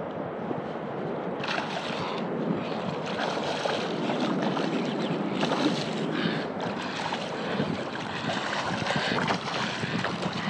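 Wind buffeting the microphone over a steady wash of water around a kayak, gusting stronger about a second and a half in and again about halfway through.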